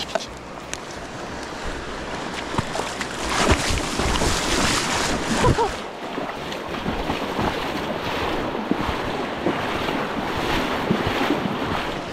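Rushing river water with wind noise on the microphone, swelling louder between about three and six seconds in.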